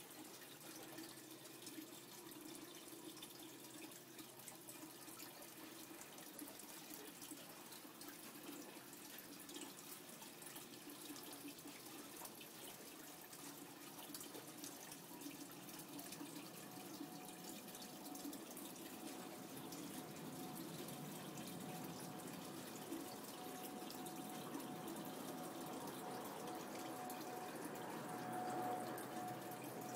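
Faint running and dripping water, slowly growing louder, with a faint steady hum coming in about halfway through.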